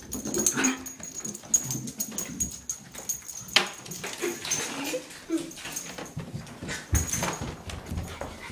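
A small dog whines in short, scattered cries as it goes after a vibrating nano bug toy, with many sharp clicks and taps throughout.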